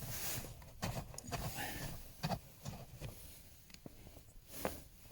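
Scattered light clicks, knocks and rubbing of hand work on the plastic cover under a car's glove box as its screws are undone.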